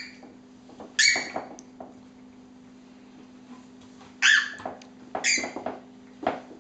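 A toddler's short, high-pitched squeals, four in all with gaps of a second or more between them. The first two slide down in pitch.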